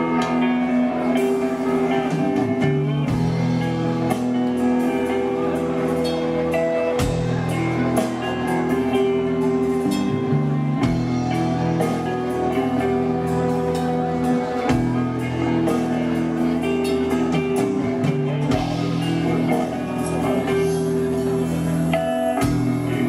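A live gothic doom metal band plays an instrumental passage on electric guitars, bass, keyboards and drums. Held chords change about every four seconds under steady drum and cymbal hits.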